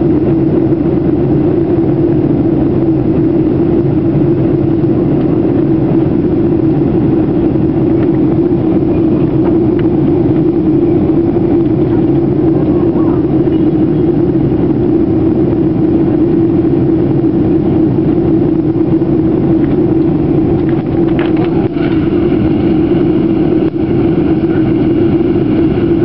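Aircraft engines droning steadily, heard inside the passenger cabin: a loud, even hum with a constant noise of rushing air around it.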